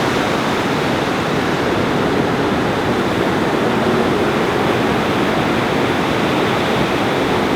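A steady, even rushing noise with no breaks or swells.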